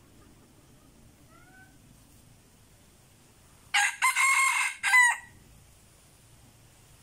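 A rooster crows once, about four seconds in: a loud crow of about a second and a half, broken into choppy segments and ending in a short falling tail.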